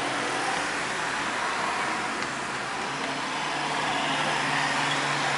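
Road traffic in a town street: a steady wash of passing-car noise, with a vehicle's engine hum coming up in the second half.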